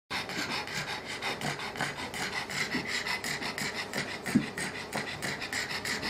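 Pug panting fast with her mouth open, about three raspy breaths a second, each carrying a high-pitched wheezing note, with one louder rasp about four seconds in. This noisy breathing is stridor from upper-airway obstruction: the dog was later diagnosed with pharyngeal collapse and stage 3 laryngeal collapse.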